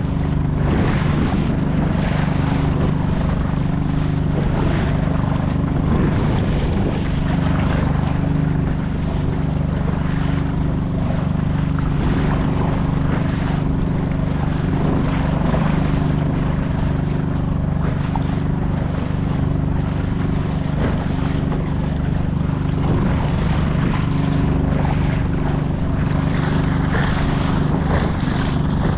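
Honda 2.3 hp four-stroke outboard on a kayak running steadily, with waves splashing around the hull in choppy water.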